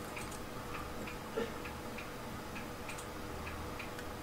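Faint, regular ticking, about three ticks a second, over a low steady hum, with one soft knock about a second and a half in.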